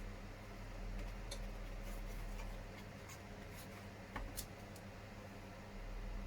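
Faint, scattered clicks and light taps of small injection-moulded plastic body parts being handled and pressed together, over a steady low hum.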